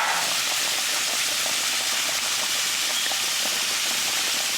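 Flour-coated pork chops sizzling steadily in hot oil in a frying pan, just after being flipped, with faint scattered crackles.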